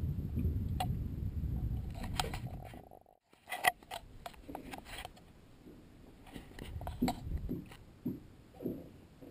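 Wind rumbling on the microphone for about three seconds, cut off suddenly, then scattered small clicks and knocks of handling.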